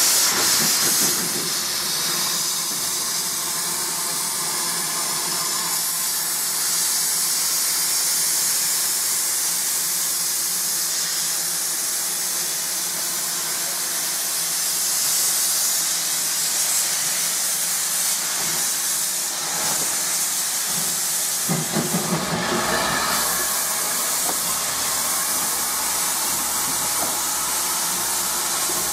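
Steam hissing steadily from the Fletcher Jennings 0-4-0 tank engine Captain Baxter, with a short louder rush about three-quarters of the way through.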